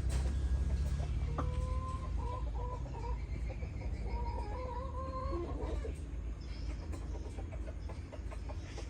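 Chickens clucking: a broken run of short pitched clucks from about a second and a half in until about six seconds, over a steady low rumble.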